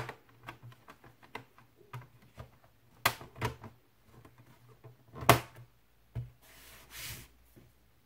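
Plastic bottom access cover of a Packard Bell laptop being fitted back onto the case and pressed down by hand: a run of light plastic clicks and taps, with sharper snaps about three and five seconds in and a brief rustle near the end.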